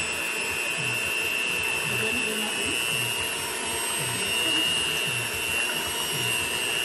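Electric mixer whisking raw eggs in a bowl, its motor giving a steady whine, with a low sound rising and falling about twice a second as the beaters work the mix.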